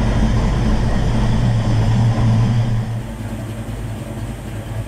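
Ford Fox-body Mustang engine idling steadily with a deep, even hum. It drops in level about three seconds in.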